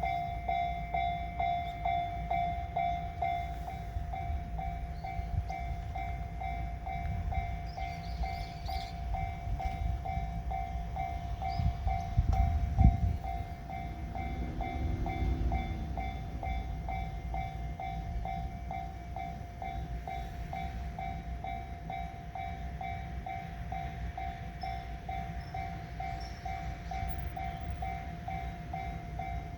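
Japanese railway level-crossing warning bell ringing in a steady, fast, even rhythm while a JR East E353-series limited express electric train passes over the crossing, its rumble loudest about twelve to thirteen seconds in, followed by a brief whine that rises and falls.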